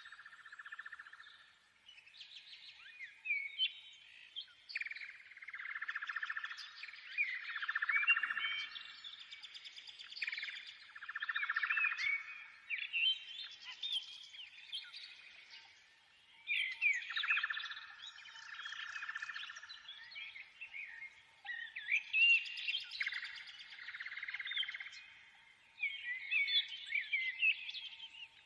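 Many small birds chirping and twittering together in dense, overlapping swells that rise and fall every few seconds.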